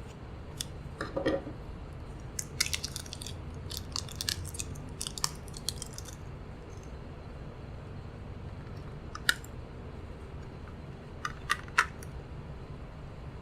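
Small plastic clicks and crackles from hands handling a wireless keyboard and mouse: a dense run of crisp clicks for a few seconds, then a few single sharp clicks near the end.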